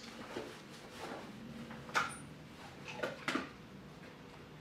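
A few short, sharp scrapes and clicks about two and three seconds in, against a quiet room: a dog pawing a sandpaper-covered wooden scratch board, with a training clicker marking the scratch.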